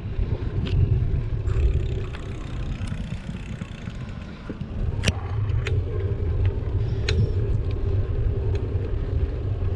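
Low rumble of wind and tyre noise on the microphone of a bicycle being ridden along a park path, with a few sharp rattles about five to seven seconds in. The rumble eases briefly about three to four seconds in.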